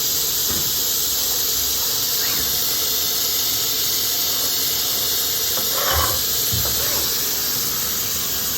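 CNC door-edge machine's high-speed router spindle running, a steady high-pitched whine, with a short knock about six seconds in.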